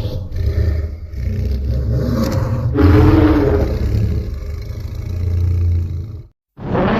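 Godzilla roar sound effect over a heavy, loud low rumble, in several surges. It cuts off suddenly about six seconds in, and another loud sound starts just before the end.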